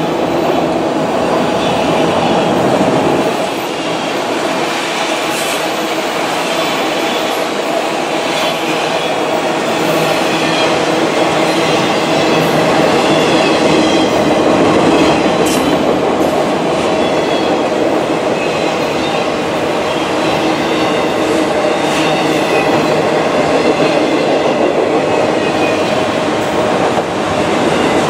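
Freight train of autorack cars rolling past close by: a steady, loud run of steel wheels on rail, with a thin high wheel squeal and a few sharp clanks.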